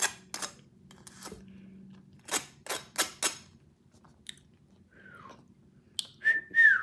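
Eating sounds from a child taking cream off a spoon: a series of sharp mouth smacks and clicks, several close together around the middle. About five seconds in comes a short falling whistle, then a higher held whistle that drops away at the end.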